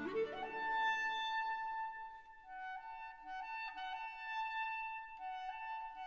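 Instrumental background music: a rising slide into a long held note, then a melody moving in steps from note to note.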